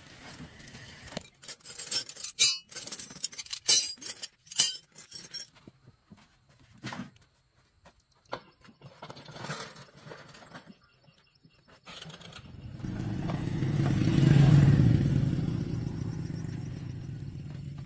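Metal hand tools, spanners and wrenches, clinking and clanking as they are set down, over the first few seconds. Later a motor's hum swells to a peak and fades away.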